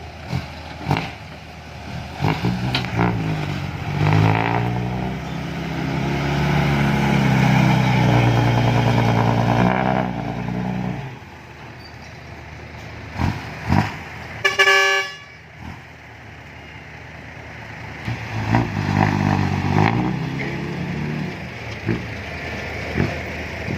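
Heavy diesel engines of an excavator and dump truck at work: an engine revs up and runs hard under load, then eases off about eleven seconds in. A short horn toot comes about halfway through, and the engine rises again near the end, with occasional sharp knocks throughout.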